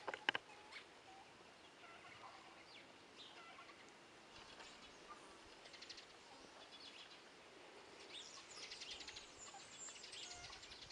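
Faint, scattered bird chirps, with a quicker twittering stretch about eight seconds in. A few sharp clicks come right at the start.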